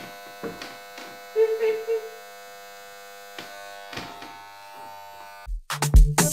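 Corded electric hair clippers running with a steady buzz, with a brief voice sound about one and a half seconds in. Music with a heavy regular beat cuts in about five and a half seconds in.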